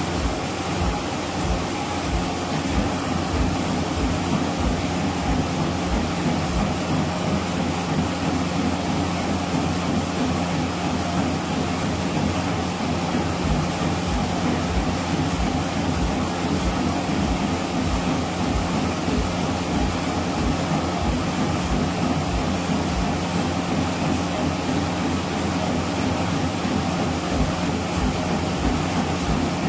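Treadmill running at high speed: quick, regular footfalls thudding on the belt, about three a second, over the steady run of the belt and motor.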